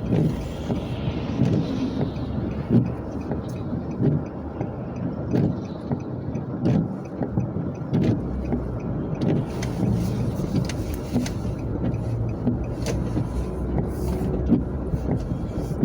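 Car running along the road, heard from inside the cabin: a steady engine and tyre rumble with scattered light clicks and knocks.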